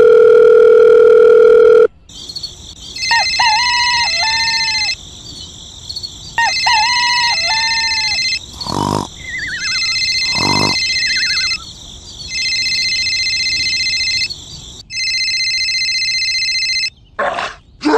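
An electronic telephone sound effect: a steady dial-tone-like tone for about two seconds, then a ringtone that comes in repeated bursts of about two seconds with short gaps between them. A couple of brief sliding cartoon sound effects break in near the middle.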